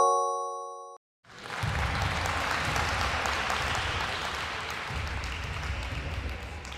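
A short chime fading in the first second, then recorded applause from a crowd that starts about a second in and runs steadily, fading toward the end. Together they mark a correct-answer reveal.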